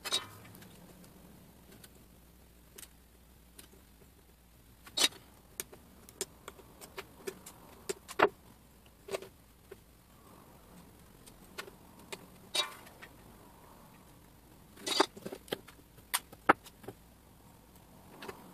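Irregular sharp clicks and taps as small electronic components, a piece of stripboard and hand tools are handled on a wooden workbench, with a handful of louder clicks scattered among many faint ones.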